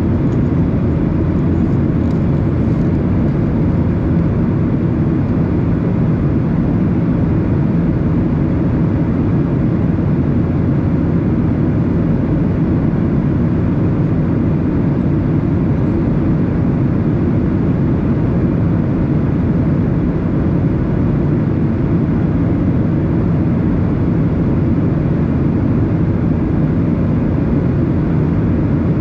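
Steady low cabin roar of a Boeing 737-800 in flight, heard from inside the cabin: its CFM56-7B turbofan engines and the rush of air over the fuselage, unchanging throughout.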